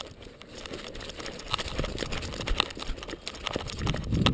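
Irregular clicks, rattles and rubbing from a GoPro fixed to a Labrador's collar as the dog moves over snow, with heavier low thuds near the end.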